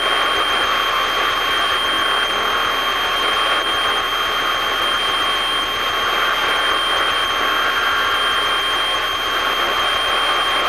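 Steady in-flight cockpit noise of a light aircraft: an even hiss with a constant high whine.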